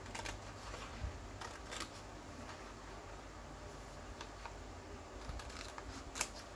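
Scissors cutting printed paper, a few quiet snips and paper rustles scattered through, with the sharpest snip near the end.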